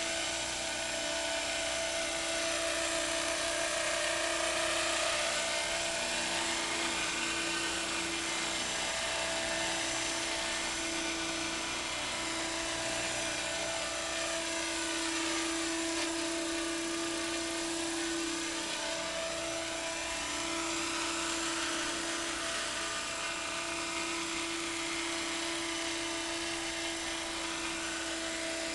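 Thunder Tiger Innovator MD 530 RC model helicopter in flight: its motor and rotors give a steady high whine that holds one pitch, with a slow swishing in the upper range that comes and goes as it moves about.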